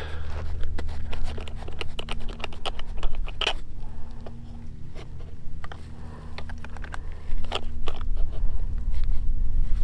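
Irregular small clicks, taps and scrapes of gear being handled, likely fastening or adjusting a pouch on a body-armor plate carrier, over a steady low hum.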